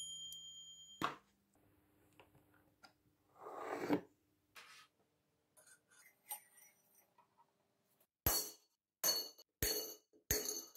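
End-cutting pliers snip through thick silver wire about a second in, just after a brief metallic ring. A short swell of noise follows in the middle. Near the end, cut lengths of silver wire are dropped into a glass jar: about five sharp, ringing clinks of metal on glass.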